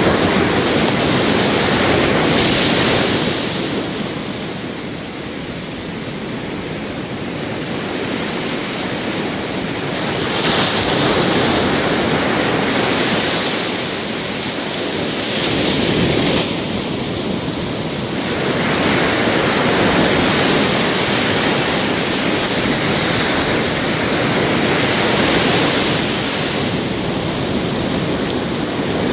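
Pacific Ocean surf: small waves breaking and washing up the beach over a steady rush, swelling every five seconds or so.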